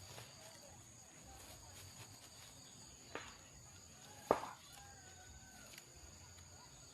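Insects buzzing steadily at a high pitch, with two sharp knocks about three and four seconds in, the second much louder.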